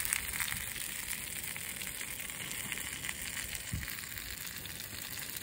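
Bacon frying in a camping pan on a Trangia stove: a faint, steady sizzling hiss, with one short dull knock about four seconds in.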